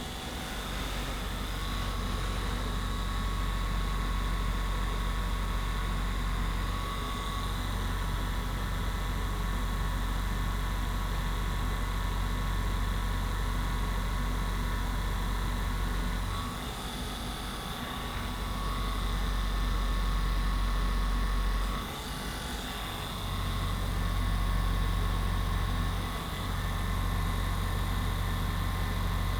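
Steady low hum of an electric motor-driven device running continuously. Its level dips briefly a few times in the second half.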